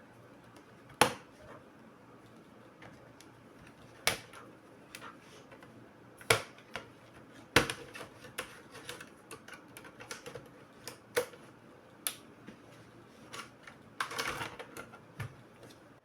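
Irregular sharp clicks and taps of hard plastic and small tools during laptop disassembly, with a quick rattle of several clicks near the end.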